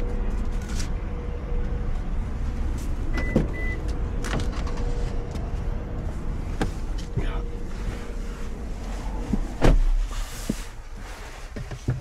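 Steady low rumble of a car with scattered clicks and knocks. About ten seconds in a car door shuts with a heavy thump, and the sound is quieter afterwards.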